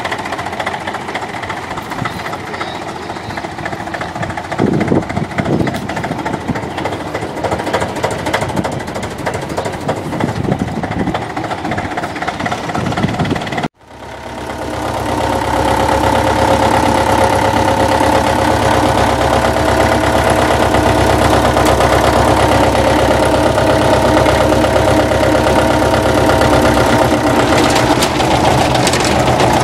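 International crawler tractor's diesel engine running steadily. The sound breaks off sharply about 14 s in, then returns louder and steadier, heard close up from the operator's seat.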